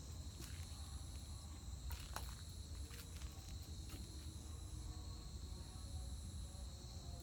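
Outdoor ambience: a steady high-pitched drone, with a second higher tone coming and going, scattered faint clicks and a low rumble underneath.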